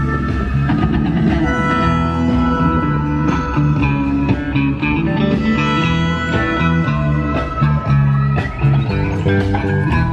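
Guitar-led music, with electric guitar over bass notes and sharp rhythmic strokes, playing steadily.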